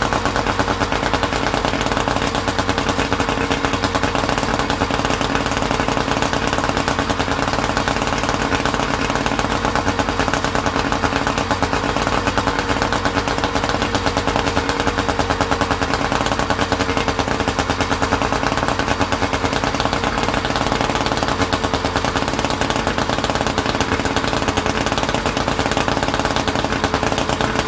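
Boat motor running steadily with a rapid, even beat from its exhaust, just brought back to life after a long struggle to start.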